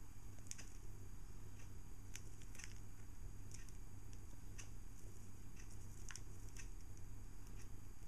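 Pet budgerigars in a cage making scattered short, high chirps and clicks, a few each second and irregular, over a steady low hum.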